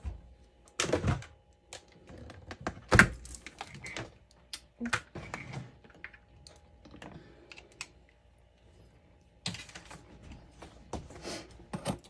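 Knocks, clicks and thunks of a mini freezer's door being opened and a plastic bowl and metal spoon being handled, in scattered sharp strokes; the loudest knock comes about three seconds in.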